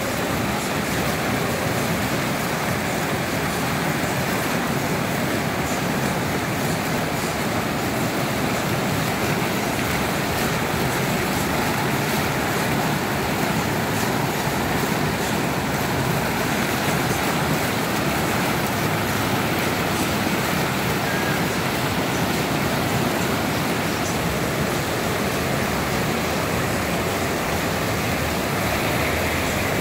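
Large artificial waterfall: water pouring and splashing in an even, unbroken rush.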